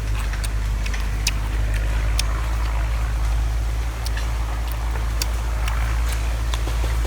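Steady low drone of an engine running nearby, with scattered sharp clicks over it.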